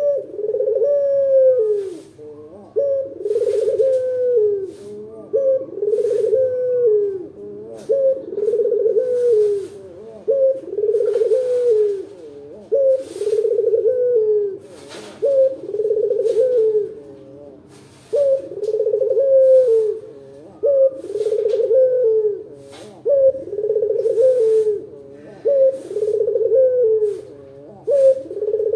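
Ringneck dove (Indonesian local 'puter') cooing over and over, low coos that rise and fall in pitch, one after another with short gaps.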